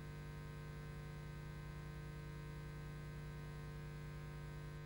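Quiet, steady electrical hum with faint hiss from VHS tape playback, lowest and strongest around a single low tone.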